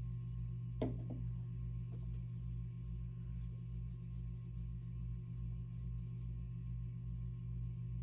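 Steady low hum of running lab equipment, with a slow throbbing pulse beneath it. About a second in there is a single light knock: a plastic epoxy syringe set down on the tiled bench.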